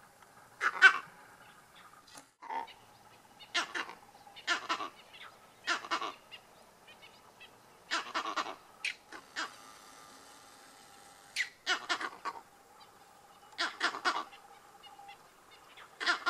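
Vervet monkeys giving repeated barking alarm calls, short bursts of two or three barks every second or two, raised at lions nearby.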